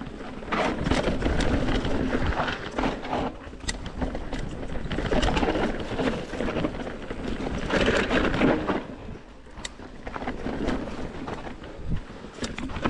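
Mountain bike riding down a rough dirt trail: tyre roar and frame and chain rattle over bumps, with wind buffeting the microphone.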